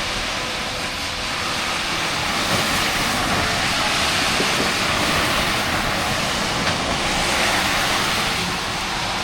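Steady rushing noise, like wind on the microphone or rain, with the faint, steady tone of a distant air-raid siren just audible beneath it.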